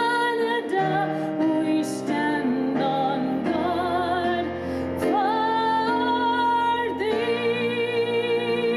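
Music with a woman singing long held notes with vibrato, the notes changing every second or so.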